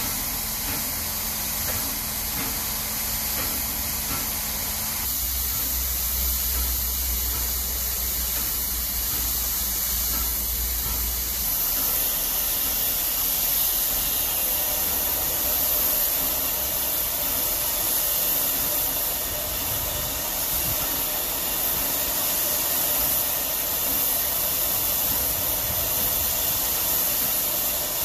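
Ol49 steam locomotive standing with its train, letting off a steady hiss of escaping steam. A low rumble sits under the hiss for several seconds in the first half.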